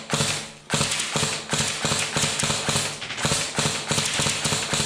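Airsoft guns firing in a firefight: a quick, uneven run of sharp snapping shots, several a second.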